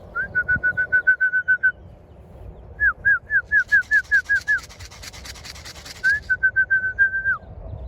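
Three quick runs of short, high whistled notes, about seven or eight a second: the first run on one steady pitch, the second made of downslurred notes, the third steady again. A fast, hissing flutter runs under the middle run.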